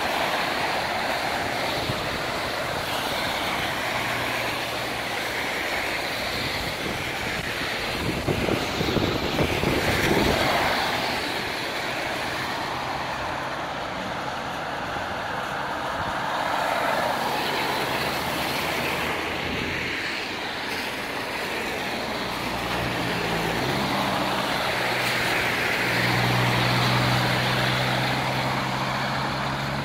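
Traffic on a rain-wet city street: passing cars' tyres hiss in swells over a steady wash of noise, with a louder low rumble from a passing vehicle about eight seconds in. A heavier engine's low drone comes in during the last several seconds and grows louder.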